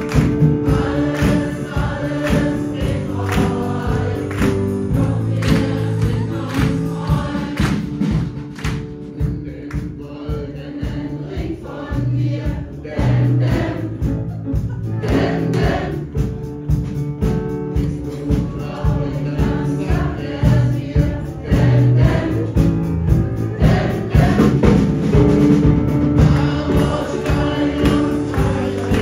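A crowd singing together along with music that has a steady beat.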